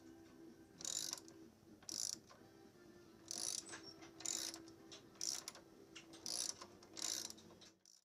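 Hand ratchet wrench with a 17 mm hex bit socket clicking as it turns a Honda CTX700's front axle bolt, in short bursts about once a second.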